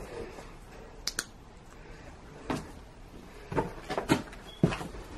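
Footsteps going down a stairway littered with loose paint and plaster flakes: a few separate steps and scuffs, with a sharp double click about a second in and a quick cluster of steps near the end.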